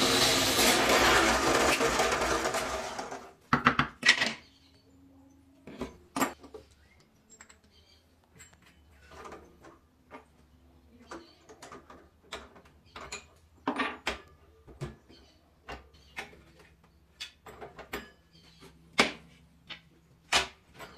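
Benchtop drill press with a hole saw cutting into purpleheart wood, a steady grinding noise that stops about three seconds in. After that come scattered clicks and knocks of tools and wood being handled.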